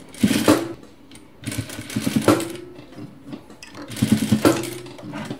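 Electric sewing machine stitching in three short runs that start and stop, sewing a gathered frill and lace trim onto a sleeve.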